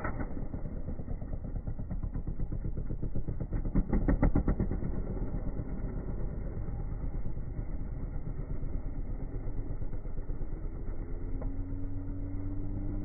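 Dirt bike engine revving on sand dunes, loudest in a short burst of rapid firing about four seconds in. Near the end an engine note rises steadily in pitch.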